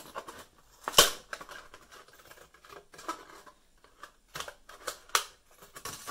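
Scissors cutting through a plastic milk bottle: a string of irregular snips and clicks, the loudest about a second in.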